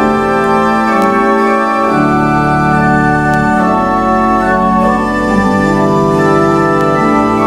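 Organ playing a hymn tune in held chords that change every second or two.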